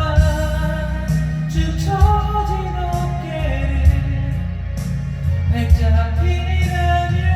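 A man singing a Korean pop ballad over a full backing track with drums.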